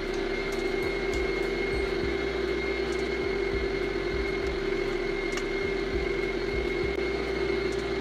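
A steady machine hum with a thin, high whine above it, and a few soft, low thumps now and then.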